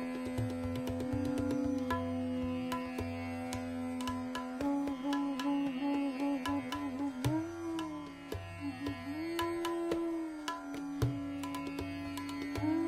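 Hindustani classical music: a bansuri flute playing a slow melody in Raga Bhopali, its long held notes bending and wavering in ornaments, over a steady drone with tabla strokes.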